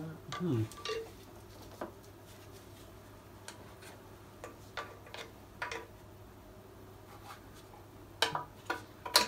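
Hand tools clicking and clinking against metal parts in a car's engine bay: scattered light clicks, with a quick run of louder clinks near the end.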